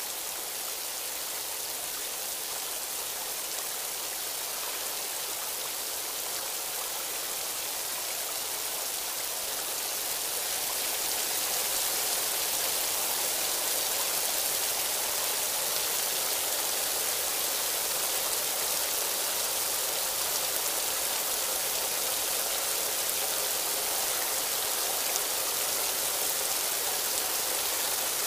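Waterfall pouring into a narrow rock cleft: a steady rush of falling water that grows louder about ten seconds in.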